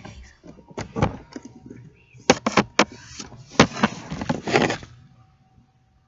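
Handling noise from the recording device being jostled and moved: a run of sharp knocks and clattering thumps with rustling, which stops about five seconds in.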